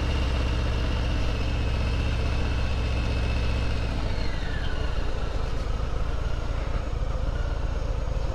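Harley-Davidson Sport Glide's 107 cubic inch Milwaukee-Eight V-twin running at low speed as the bike rolls along. Its note drops about halfway through.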